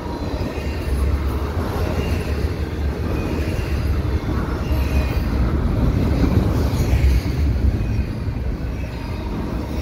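Double-stack intermodal freight cars passing at speed: a steady rumble of steel wheels rolling on the rails.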